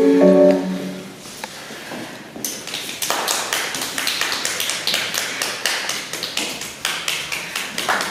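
Music ends on its last held notes in the first second; after a short lull, an audience applauds steadily.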